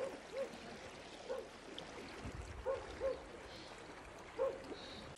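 Floodwater flowing across a ranch yard, a steady rushing wash of water. Over it, about six short, faint calls, some in quick pairs.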